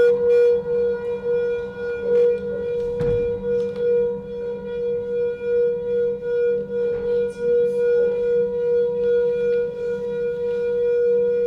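Sustained musical drone: one steady mid-pitched tone with fainter higher tones above it. A soft knock about three seconds in.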